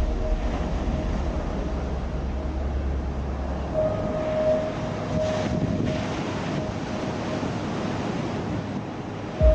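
Rushing surf-like noise under an ambient soundtrack: a held tone that swells and fades, and a deep bass drone that drops out about four seconds in.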